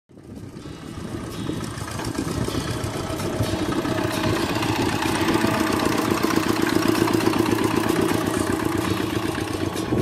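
Kubota walking tractor's single-cylinder diesel engine running under load as it pulls a plough, with a fast, even chug. The sound fades in over the first two seconds, then holds steady.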